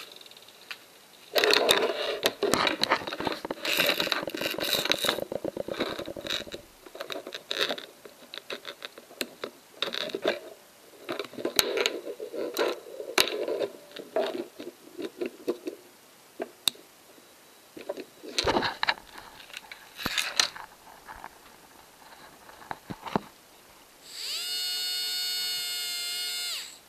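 Clattering and clicking of small electronic parts being handled on a desk, with a dense rattle in the first few seconds. Near the end a steady electric buzz with a fixed pitch sounds for about three seconds and cuts off.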